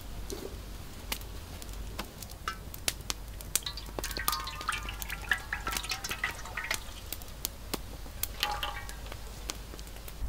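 Wood fire crackling with sharp pops under an aluminium wok, while cooking oil is poured into the wok from about four seconds in, heard as a run of liquid pouring sounds with a short second run near the end.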